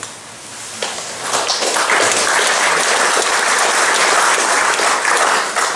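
Audience applauding: the clapping starts about a second in, swells, holds steady, and dies away near the end.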